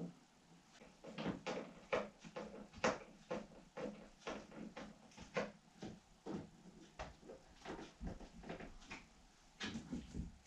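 Irregular clicks and knocks, several a second, of hands and hardware working on a wooden cabinet during flat-pack assembly.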